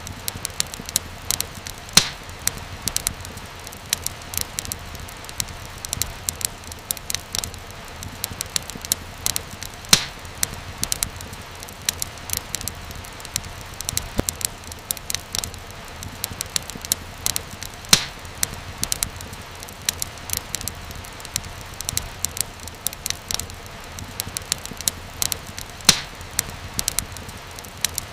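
Wood fire crackling in a fireplace, with a steady soft hiss under a constant scatter of small snaps. A louder pop comes about every eight seconds.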